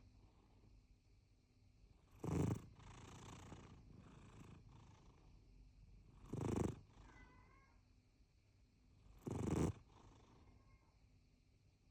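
A cat snoring in its sleep: three short, loud snores about three to four seconds apart, with softer breathing in between.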